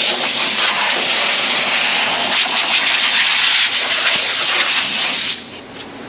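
Loud, steady hiss of a high-pressure jet blasting dirt off the top of a fuel tank around the fuel pump. It cuts off about five seconds in.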